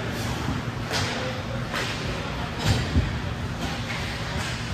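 Ice hockey game sounds: skate blades scraping the ice in short hissy strokes, about one a second, with a heavier thud about three seconds in.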